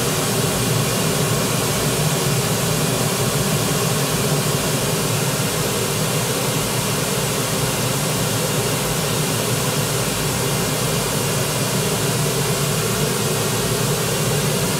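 Steady pink noise played through a studio monitor during level calibration. It serves as the test signal while the speaker's output level is set to give about 75 dB SPL at the listening position.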